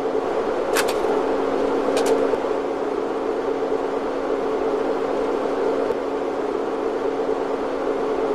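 A steady mechanical whir with a low, even hum running under it, broken by two sharp clicks about one and two seconds in.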